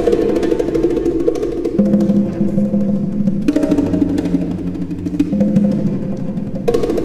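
Bongos played with bare hands in a fast, even patter over sustained low cello notes.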